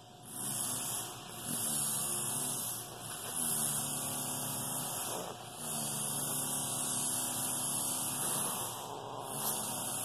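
Senegal parrot mimicking a demolition hammer: a buzzing, rolled "rrrrrrr" made in about five long stretches with short breaks between them.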